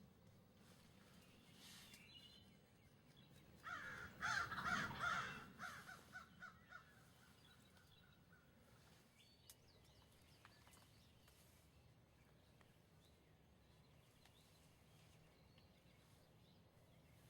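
A bird gives a loud burst of harsh, rattling calls about four seconds in, which trail off over the next three seconds in fading repeats.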